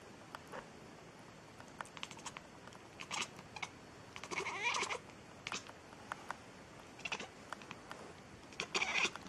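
A domestic cat meowing a few times, the longest call about halfway through and another near the end, with small clicks and scuffs in between.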